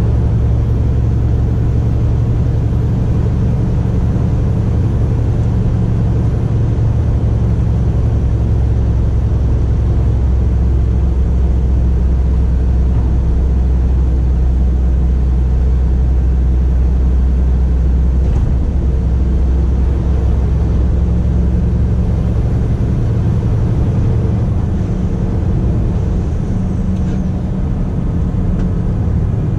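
Scania R450 truck's 13-litre six-cylinder diesel running steadily on the road, with road noise; the low engine drone eases for a few seconds near the end.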